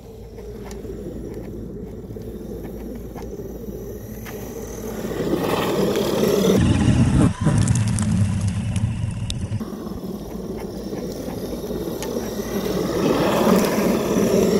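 Traxxas E-Revo electric RC truck driving across snow, its motor and drivetrain running and tyres churning through the snow. It is loudest about halfway through, when it passes close by throwing up snow.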